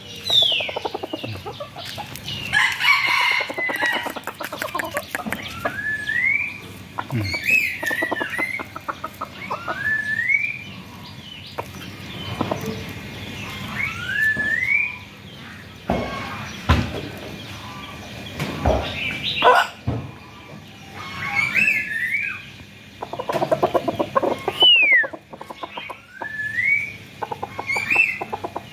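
Rooster clucking in quick runs of pulses, mixed with short rising calls that come every couple of seconds.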